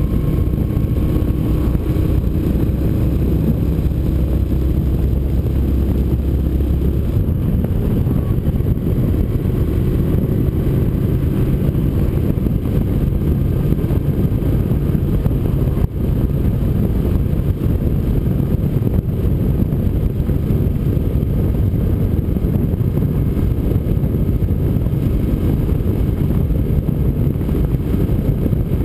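Motorcycle engine running at road speed with wind rushing over a windshield-mounted camera: a loud, steady low rumble.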